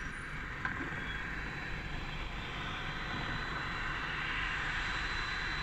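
Road vehicle noise: a steady rushing sound of engine and tyres over a low rumble, growing gradually louder.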